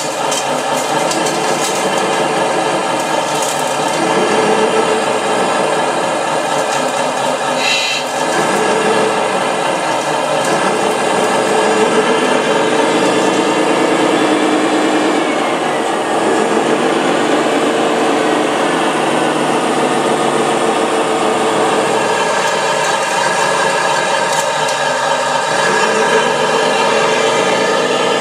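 Small electric motors of radio-controlled construction models whining steadily, several tones at once, with some pitch glides in the middle as the machines change speed.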